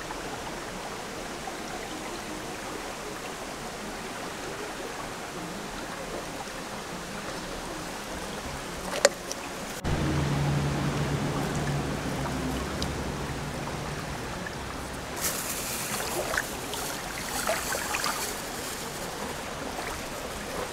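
Steady running water of a stream. A sharp click comes about nine seconds in; from about ten seconds a low hum joins, and scattered small clicks follow later.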